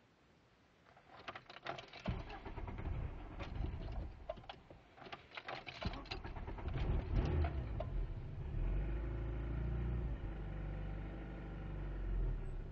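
A 1998 Volkswagen Jetta's engine being started. Keys rattle and click, then the engine cranks and runs about two seconds in. It cuts out briefly near six seconds, comes back, and settles into a steady idle. This is a car with a misfire and an unstable idle that dies when cold.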